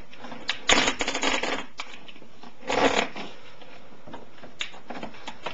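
Heavy-gauge amplifier power wire being pushed and tucked into place, its plastic covering scraping and rustling against nearby parts: a rustle about a second long, then a shorter one about three seconds in, with a few small clicks.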